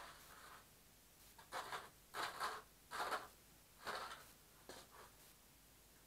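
Handling noises from work on a vacuum cleaner housing: a run of short scrapes and rustles, about four louder ones roughly a second apart in the middle, with fainter ones around them.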